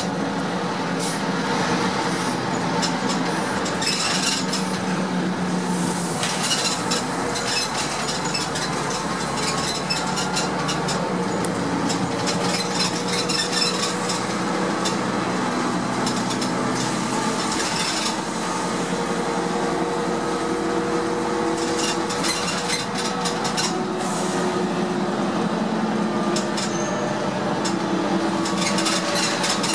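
Inside a Heuliez GX 417 bus: the engine and drivetrain drone steadily, their pitch drifting up and down, while interior panels and fittings rattle and clink.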